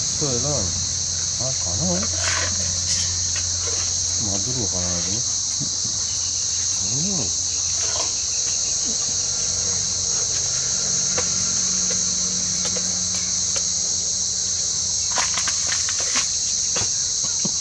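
A steady, high-pitched chorus of insects chirring without a break, with faint voices in the first few seconds.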